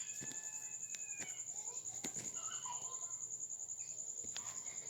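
An insect chirring steadily throughout in a high, rapidly pulsing trill, with a few faint bird calls and clicks alongside.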